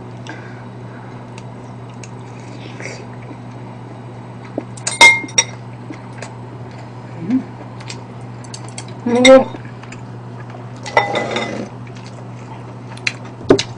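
A metal spoon and chopsticks clinking against ceramic bowls and plates while eating: a few sharp clinks with a short ring, the loudest about five seconds in, and a spoon scraping across a plate around eleven seconds. A steady low hum runs underneath.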